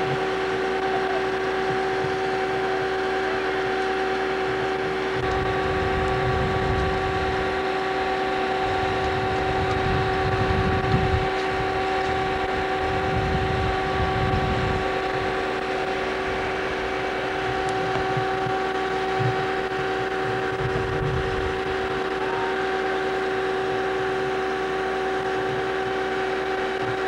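Steady mechanical hum of a running machine, one unchanging pitch with overtones. Irregular low rumbling comes and goes between about five and fifteen seconds in, and briefly again around twenty seconds in.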